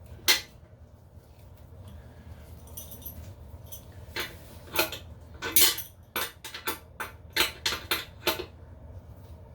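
Irregular metallic clicks and clinks from a metal tool working the nuts on a toilet's tank-to-bowl bolts as they are tightened to just tight: one click near the start, then about a dozen bunched in the second half.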